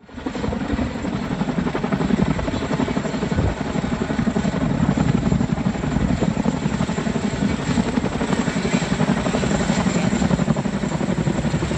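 Boeing CH-47 Chinook twin-rotor helicopter flying overhead, its tandem rotors beating with a steady, fast low chop; the sound comes in quickly at the start.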